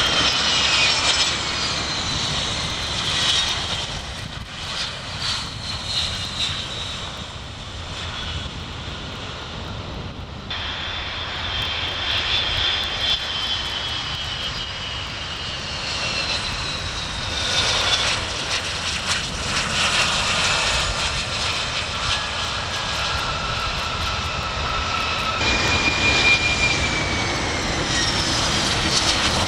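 Jet airliners passing close by low over the runway, one after another: a four-engine jet airliner, then a twin-engine Boeing 757 from about ten seconds in, then a Boeing 737 from near the end. Each one brings a steady engine rumble and a high whine that falls in pitch as it goes by.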